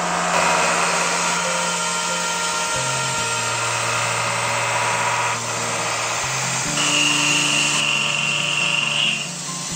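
Five-insert indexable shoulder milling cutter cutting carbon steel on a CNC mill, a steady machining noise that changes character a few times as the cut changes, under background music.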